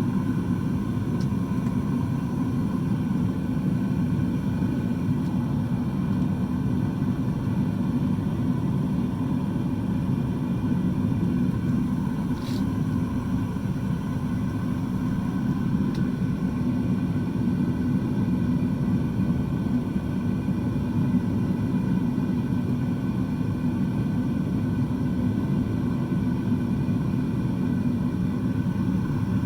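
Homemade metal-melting furnace burning on its test fire: the burner flame swirling around the crucible makes a steady, deep, unbroken noise.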